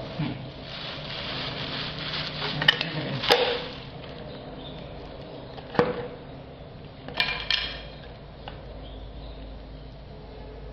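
Stirring in a metal can: scraping, then a few sharp clinks and knocks, with a short rattle of clinks about seven seconds in.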